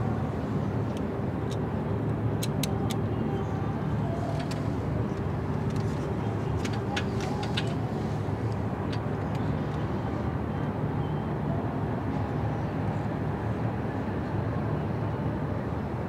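A steady low engine drone with a constant hum, broken by a few faint sharp clicks about two to three seconds in and again around seven seconds in.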